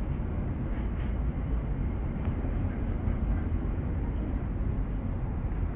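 Train of empty two-deck car-carrier wagons rolling past close by, a steady low rumble of wheels on the rails.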